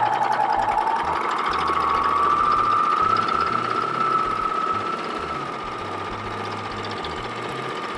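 Juki MO-1000 serger running at speed, stitching a test 3-thread rolled hem on fabric. Its motor whine rises in pitch over the first three seconds, holds steady, then eases a little about five seconds in.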